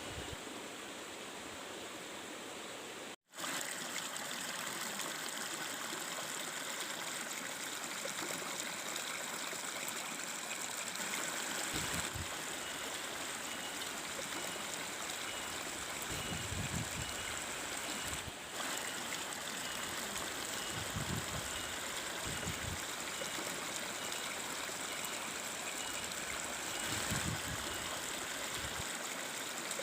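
Stream water flowing steadily in the forest, after a brief cut about three seconds in, with a few soft low thumps and faint regular high chirping.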